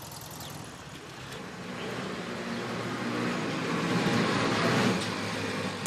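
Duo 4/1 three-wheeled invalid carriage driving up over cobblestones, its small engine running steadily and growing louder as it approaches.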